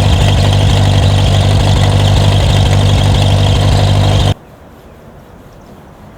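Ford 8N tractor's four-cylinder engine running steadily and loud, with an even firing beat. It cuts off abruptly about four seconds in, leaving a much quieter background.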